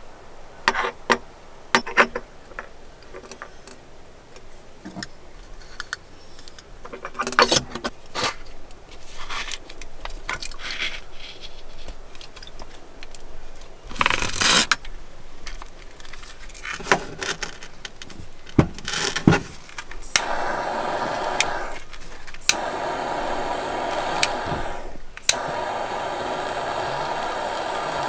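Metal clinks, scrapes and clicks of a spoon and small metal cookware being handled. From about twenty seconds in, a butane torch lighter's jet flame hisses steadily as it lights a small stove, cutting out briefly twice.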